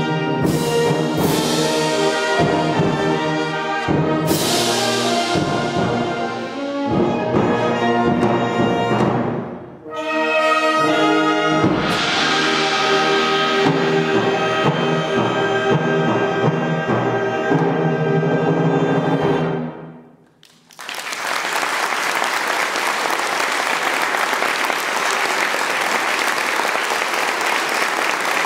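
Concert wind band of woodwinds, brass and percussion playing the closing bars: sharp accented chords, a brief break, then a long held final chord that cuts off abruptly. After a moment's quiet, audience applause breaks out and carries on.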